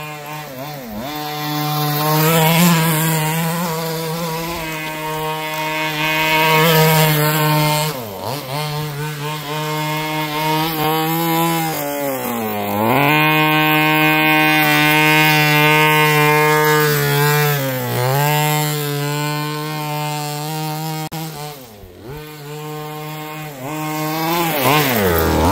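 Small two-stroke engine of an Exceed Barca 4x4 RC buggy running hard as the buggy is driven, its pitch dropping and climbing back several times as the throttle is let off and reapplied, with the deepest dip about twelve seconds in.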